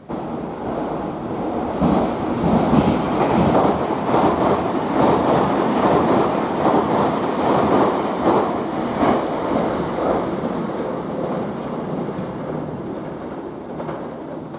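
Electric commuter train running along the platform, its wheels clacking over rail joints in a quick, regular rhythm. The sound swells over the first couple of seconds and fades slowly toward the end.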